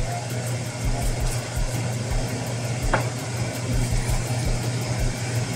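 A pot of chili at the boil, bubbling and hissing over a steady low hum, with a single short tick about three seconds in.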